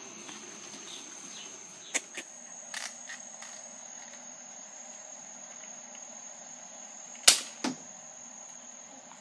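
Toy Nerf dart blasters firing: a few sharp clicks and snaps about two and three seconds in, then the loudest shot about seven seconds in with a smaller one just after. A steady high-pitched insect trill sounds throughout.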